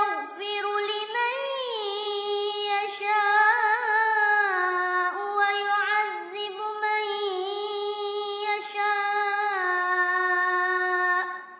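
A single high voice chanting Quran recitation in one long, drawn-out melodic phrase, its held notes wavering in small ornaments. It stops shortly before the end.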